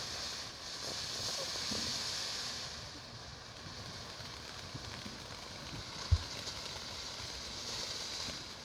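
Small ground firework, a fountain type, spraying sparks with a steady, fairly quiet hiss that swells and eases, with a single soft pop about six seconds in.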